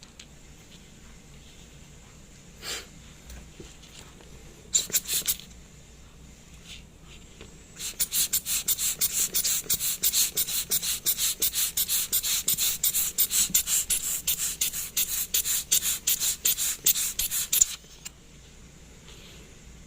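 Rapid back-and-forth rubbing or scrubbing strokes on a small watch part, about five a second, running for about ten seconds. A short scrape and a brief burst come a few seconds before.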